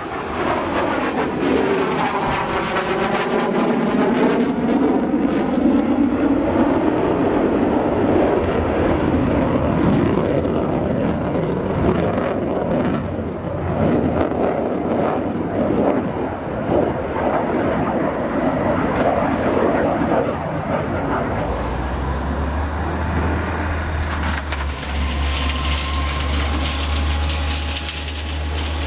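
Jet noise from a JASDF F-15J Eagle's twin turbofan engines as the fighter flies display maneuvers overhead. A sweeping, phasing whoosh marks its pass in the first few seconds, then a continuous crackling roar. A deep low rumble joins in about three-quarters of the way through.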